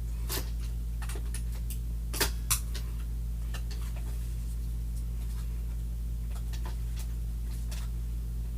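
Hands working at a Roomba's battery and plastic housing, trying to get the battery out: scattered plastic clicks and knocks, two louder ones about two seconds in and fewer later, over a steady low electrical hum.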